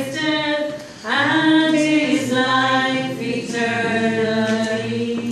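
Singing in long held notes, with a short break about a second in.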